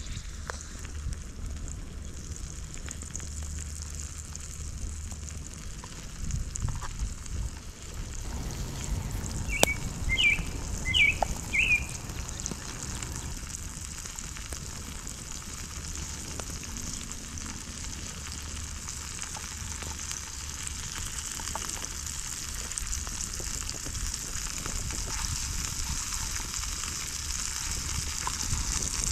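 Morel mushrooms sizzling as they fry in oil in an aluminium mess-kit pan, with light clicks of a fork turning them; the sizzle grows a little louder toward the end. A sharp click and a few short high chirps come about ten seconds in.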